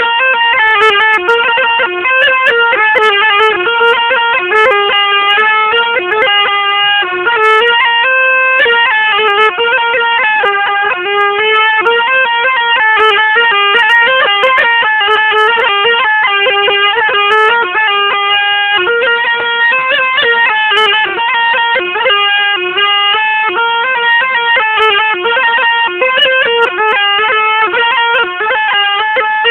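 Zurna playing a continuous melody that moves quickly from note to note, without any pause for breath.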